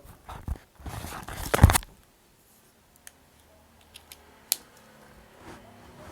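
Paper and stationery being handled on a desk: a couple of rustling, scraping bursts, then a few small sharp clicks.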